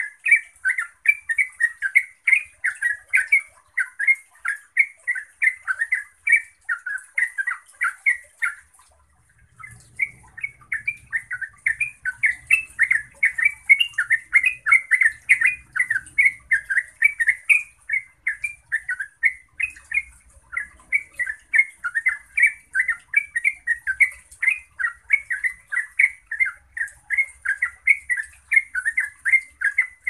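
Yellow-vented bulbul (trucukan) singing its ropel: a long, fast, unbroken run of bubbling warbled notes, several a second, with one brief pause about nine seconds in before the run resumes.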